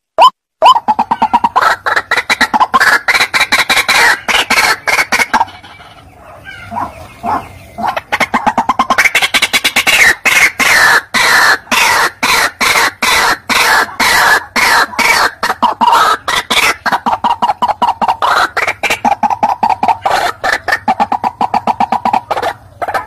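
White-breasted waterhen calling: a long run of rapid, harsh repeated notes, broken by a short lull about six seconds in before the calling picks up again.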